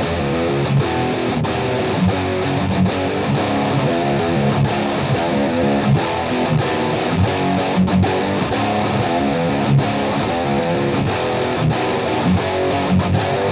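Double-tracked, distorted electric guitar playing a metal rhythm riff in a low C#/drop B tuning, through an unequalised Seymour Duncan bridge-position humbucker.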